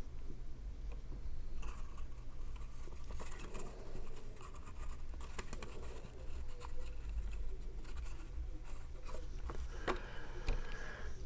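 Cardstock and paper pieces being handled and pressed into place while gluing: light rustling, scratching and small irregular taps, over a steady low hum.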